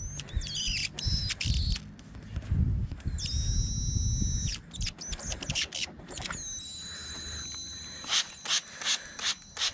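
A trigger spray bottle spraying soapy water in quick, even strokes, about two or three a second, starting about eight seconds in. Before that, birds call with high held whistles over a low rumble.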